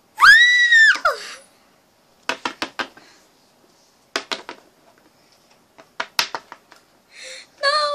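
A child's high-pitched scream lasting about a second, followed by several groups of sharp clicks from plastic toy figurines knocking on a hard surface, and a short wavering whimper near the end.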